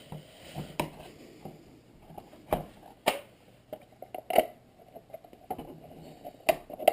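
Plastic case of an RC transmitter being handled and fitted back together: scattered light clicks and knocks a second or so apart.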